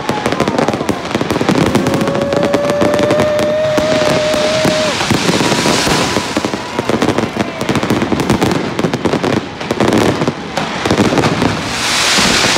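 A dense fireworks barrage: rapid, overlapping bangs and crackling with no break, loud and close. A held whistling tone sounds over it for about three seconds near the start, and a hissing surge rises near the end.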